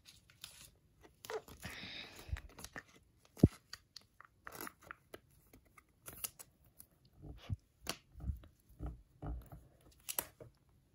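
A trading card being handled and slid into a soft clear plastic sleeve: light plastic rustling, with scattered small clicks and taps of card stock against the sleeve and the desk mat.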